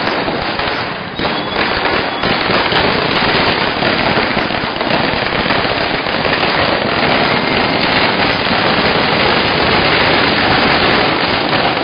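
Firecrackers going off on the ground in a loud, rapid, unbroken crackle of bangs, with a brief dip about a second in.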